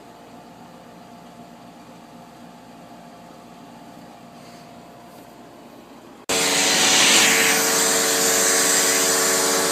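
Faint steady hum for about six seconds, then a vacuum cleaner comes in abruptly and runs loudly and steadily with a whining motor tone.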